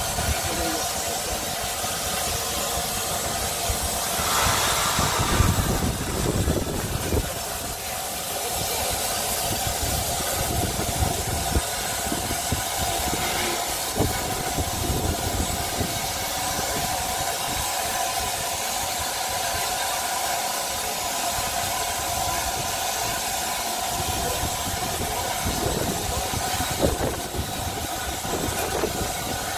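Rebuilt Bulleid Merchant Navy Pacific 35018 'British India Line' standing with steam up, hissing steadily as steam escapes around its front end, with louder gusts of steam about four seconds in and again near the end.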